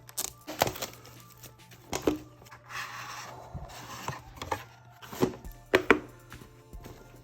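Trading-card booster packaging being handled and opened: several sharp taps and knocks, and a rustling tear lasting about a second and a half near the middle.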